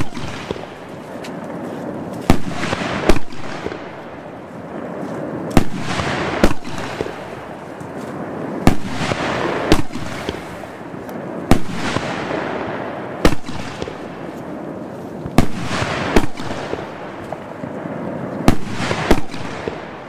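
A 50 mm F4 firework cake (battery) firing shot after shot. Sharp bangs come mostly in pairs about a second apart, every two to three seconds, with a hissing crackle trailing off between them.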